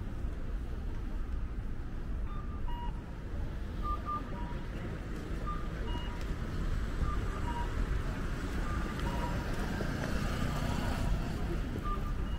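Street traffic running, with a repeating two-note electronic signal, a short higher note then a lower one, sounding about every second and a half.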